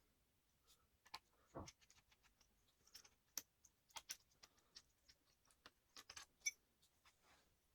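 Faint, irregular small clicks and taps of hands handling a laptop's parts and tools, with a duller knock about one and a half seconds in. The loudest is a sharp click with a brief metallic ring about six and a half seconds in.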